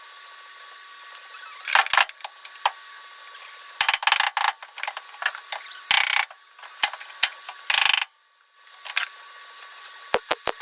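Welding on sheet-steel floor patches of a car body: four short crackling bursts of welding arc with scattered sharp clicks between them, as of tack welds being laid one at a time.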